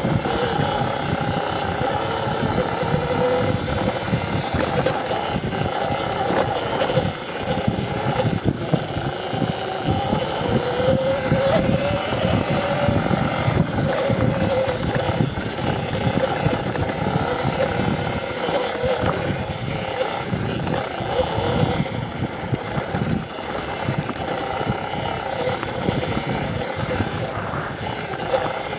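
CZEM Drill One electric enduro bike being ridden off-road. The motor's whine rises and falls in pitch as speed changes, over a steady rush of noise.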